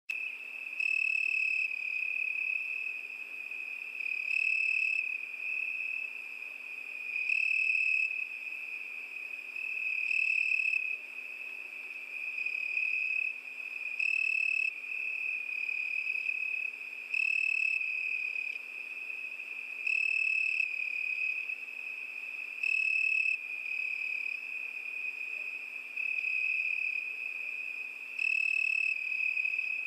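Crickets chirping on a summer night: a steady high trill that swells louder about every three seconds.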